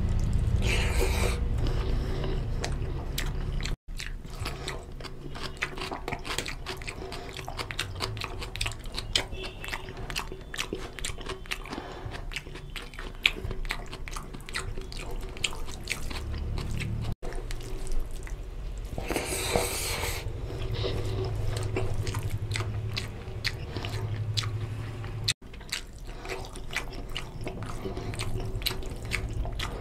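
Close-miked chewing and biting of rice and oily mutton curry, eaten by hand, with wet mouth clicks and smacking. There is a louder wet burst a little before two-thirds of the way through.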